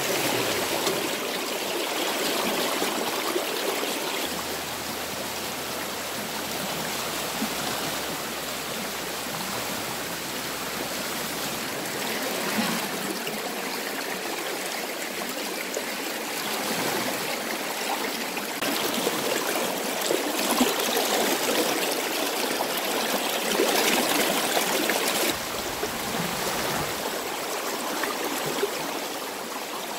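Fast-flowing river rushing over shallow rapids: a steady wash of water that swells and eases a little.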